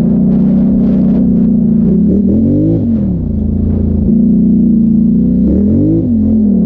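Polaris Sportsman XP 1000 ATV's parallel-twin engine running under throttle at a steady pitch, rising and falling twice as the throttle is worked, about two seconds in and again near the end.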